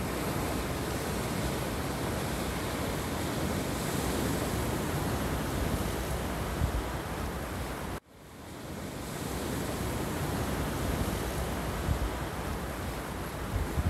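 Surf washing in over rocks and a pebble beach, a steady rush of breaking waves. About eight seconds in the sound cuts out suddenly and fades back in over a second or so.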